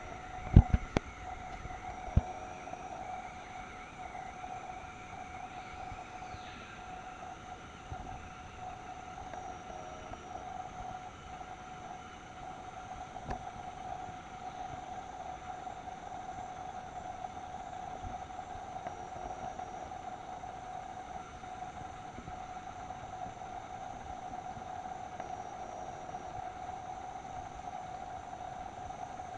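Steady rainforest ambience: a continuous droning hum with thinner, higher tones held above it, and a few sharp knocks in the first couple of seconds.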